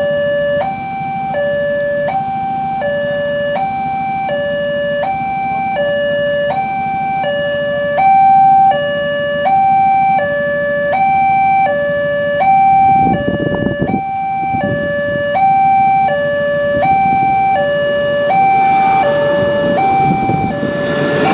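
Railroad crossing warning alarm sounding a steady electronic two-tone signal, alternating high and low about once a second, warning that a train is coming. A brief low rumble comes about 13 seconds in, and the noise of the approaching train builds near the end.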